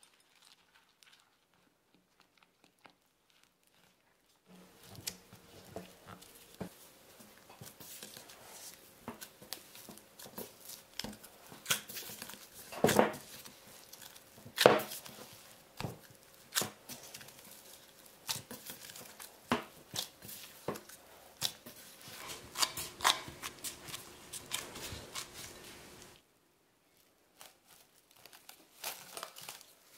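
Gloved hands mixing and kneading soft raisin dough in a glass bowl: irregular knocks against the glass and plastic-glove crinkling, starting about four seconds in and stopping a few seconds before the end. Near the end, cling film rustles as it is stretched over the bowl.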